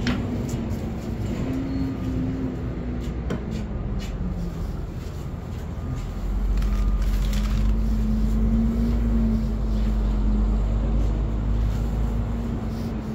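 Road-vehicle engine hum over a deep traffic rumble, swelling louder about six seconds in as a large vehicle idles or passes. A few light clicks sound on top.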